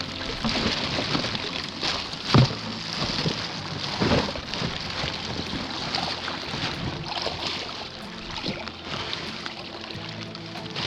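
Water sloshing and splashing against a small boat in wind and rain, under a steady low hum. A sharp knock comes about two and a half seconds in and a smaller one at about four seconds.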